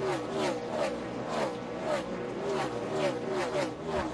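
A pack of NASCAR Cup Series V8 stock cars racing past one after another, the engine pitch rising and falling with each car in quick succession.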